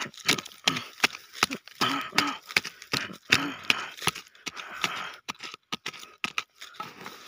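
Wooden stick digging and scraping into dry grass and stony soil: a quick, irregular run of crunching scrapes and sharp clicks, with a faint steady tone underneath.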